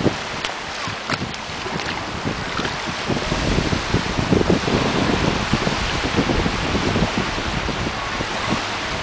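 Wind buffeting the microphone over small waves washing onto a sandy shore, with a few light clicks in the first couple of seconds; the gusts grow stronger from about three seconds in.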